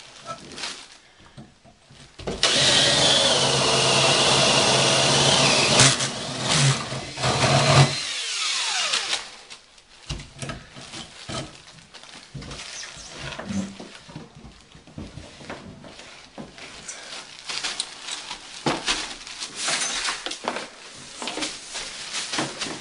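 A power tool runs steadily for about six seconds, starting a couple of seconds in, then winds down with a falling pitch. Scattered knocks and rustling from handling materials follow.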